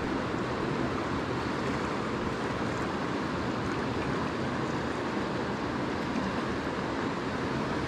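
Steady rushing of river water, an even, unbroken wash of noise with no other events.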